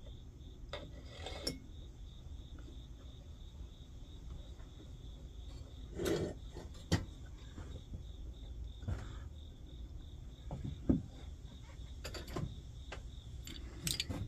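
Small clicks and knocks of a brass valve assembly being handled and fitted onto a Coleman 508 stove's steel fuel tank, a few sharper knocks near the middle and about two-thirds through. A cricket chirps steadily in the background.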